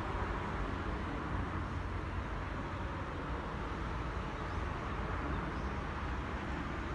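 Steady low rumble and hiss of outdoor noise, even throughout, with no distinct bangs or events.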